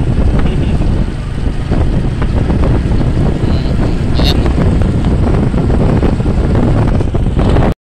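Heavy wind buffeting on the microphone of a camera carried on a moving motorbike, with motorbike engine noise underneath. A short high chirp comes about four seconds in, and the sound cuts off abruptly just before the end.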